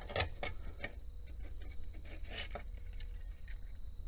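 Small clicks and light rubbing from the opened plastic housing of a Pope two-dial tap timer being handled, with one sharper click at the start.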